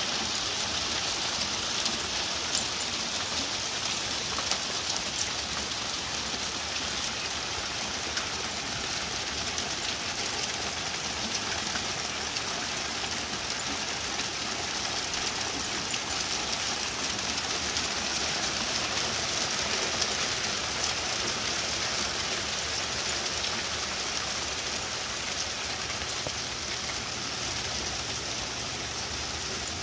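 Hail falling hard and steadily on a wooden deck, lawn and trees: a dense, even hiss made of countless small ticks.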